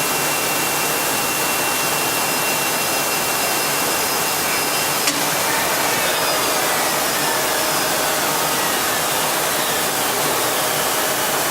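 Heian ER 531P CNC router running with a steady loud machine noise. A high steady tone stops with a sharp click about five seconds in, and fainter tones then fall slowly in pitch.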